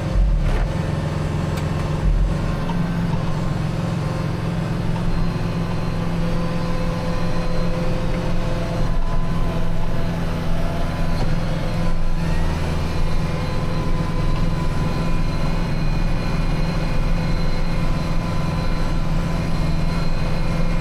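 Kubota tractor's diesel engine running steadily under load, driving a rear-mounted PTO snowblower through deep snow, with a steady high whine over the engine's hum and a few knocks in the first couple of seconds.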